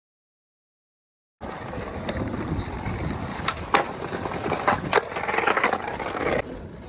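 Skateboard wheels rolling over pavement, a steady rough rumble that starts suddenly about a second and a half in, with several sharp clacks of the board along the way.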